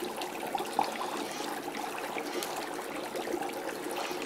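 Dry ice bubbling in water: a steady fizzing, gurgling churn made of many small pops.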